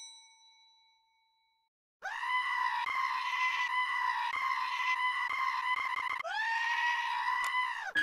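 A bell-like ding fades out. About two seconds in, a long, high-pitched scream starts, held at one steady pitch for about four seconds; it breaks off briefly and comes back for another second or two before it stops.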